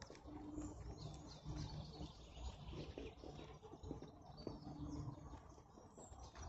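Small birds chirping, many short high calls scattered through, over a faint low background rumble.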